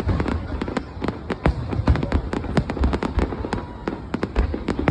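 Fireworks going off in a dense, irregular run of sharp bangs and crackles, many a second, with deeper booms among them.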